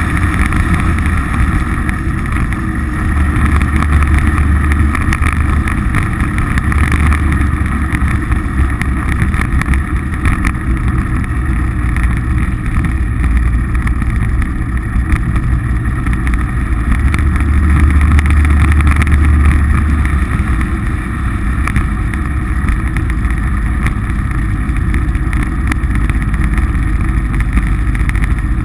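Polaris RZR side-by-side's engine running under way as a steady low drone, swelling a little a few seconds in and again past the middle.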